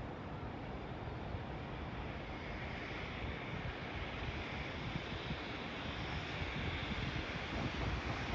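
An electric freight train hauling tank cars approaching: a broad, steady rumble that slowly grows louder, with a hiss that builds from about two and a half seconds in.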